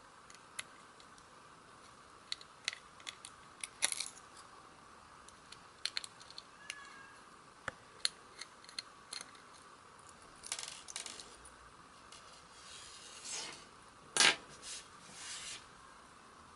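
Scattered small clicks, taps and short scrapes of a Phillips screwdriver and small plastic and metal parts being handled while screws are taken out of a dashcam's circuit board, with one louder knock about fourteen seconds in.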